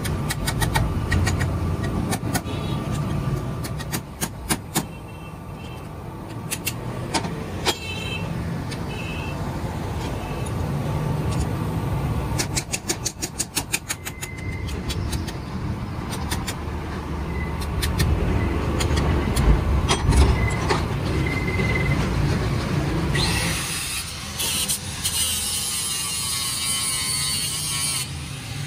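A steel hammer strikes the steel body of a hydraulic bottle jack held in a vise: separate blows, then a quick run of light strikes midway. Near the end an electric angle grinder starts and runs with a steady high whine.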